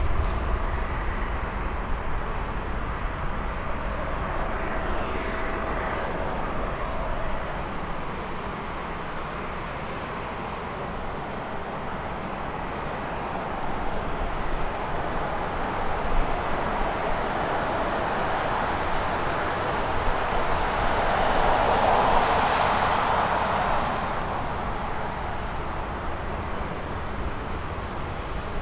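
Airbus A350-941's two Rolls-Royce Trent XWB turbofan engines running at taxi power: a steady jet rush that swells louder about two-thirds of the way through, then eases.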